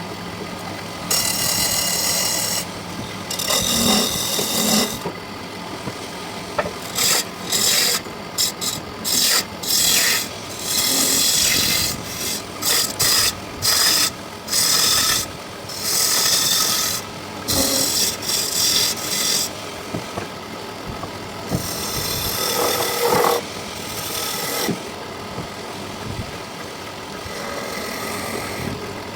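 Wood being abraded, a rasp or sanding scratch across the wood surface, in repeated stop-start strokes. Some strokes are short and quick, others last a second or more.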